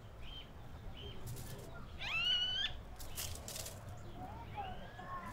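Outdoor animal calls: short high chirps repeating at the start and brief hissy bursts. About two seconds in, a louder rising call lasts under a second, followed by fainter gliding calls.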